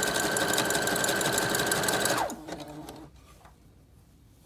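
Brother electric sewing machine running at full speed on a wide zigzag stitch through doubled hair wefts, its motor whining steadily over rapid needle clicks. The whine winds down and the machine stops a little over two seconds in.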